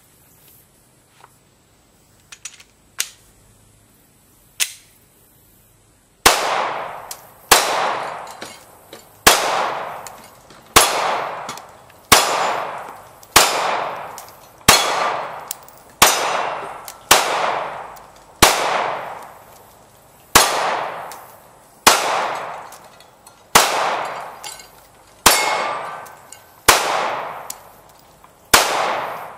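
Glock 19 Gen 4 9mm pistol firing about sixteen shots in slow, steady fire, roughly one every second and a half, each followed by a short echo. A few faint clicks and small pops come before the first shot about six seconds in.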